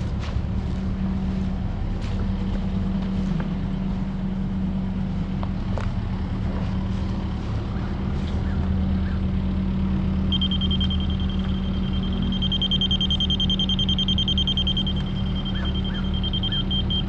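Excavator diesel engine running steadily. About ten seconds in, a continuous high-pitched electronic tone starts and keeps sounding over it.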